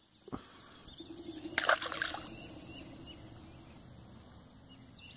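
Small bluegill tossed back into a pond, hitting the water with a short splash about a second and a half in. Faint outdoor background follows.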